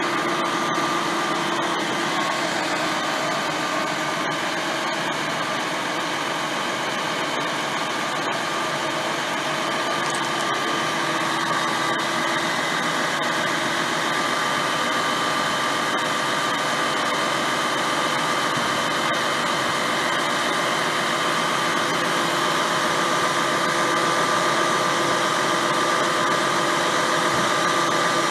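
Reel loader truck's engine and hydraulic system running steadily, a constant hum with a whine, as the hydraulic arms lift a loaded cable reel. The sound grows a little louder near the end.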